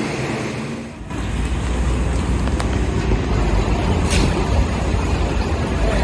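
Street traffic: a continuous low rumble of vehicle engines and road noise, which comes in loud about a second in after a steady low hum fades out.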